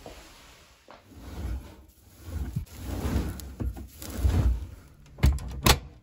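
Fabric rustling and muffled bumps as an armful of curtains and laundry is handled, then two sharp clacks close together near the end.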